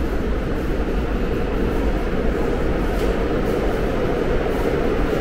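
Seoul subway train running: a steady rumble and rush of noise that grows slightly louder toward the end.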